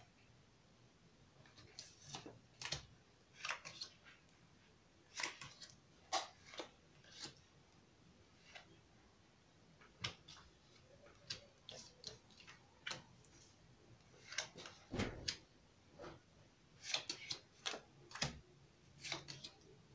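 Playing cards being dealt from a deck and laid down on a table one at a time: soft, irregular snaps and slaps of cards coming in small clusters with short pauses between.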